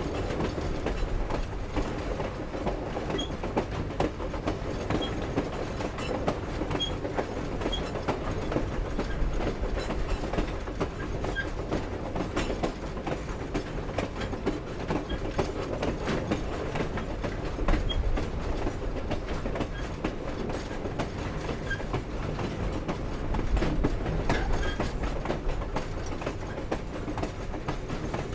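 Steam-hauled passenger train rolling along: a steady rumble of wheels on the rails, with frequent clicks and clanks from the cars and a few faint, brief squeaks.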